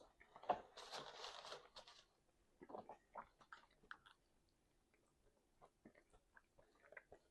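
A person chewing and biting food close to the microphone. About a second in there is a crunching bite that lasts about a second, followed by scattered, softer chewing clicks.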